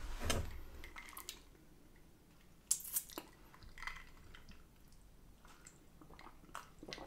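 A person eating with the mouth close to the microphone: quiet chewing with scattered wet smacks and clicks, a few louder ones about three seconds in.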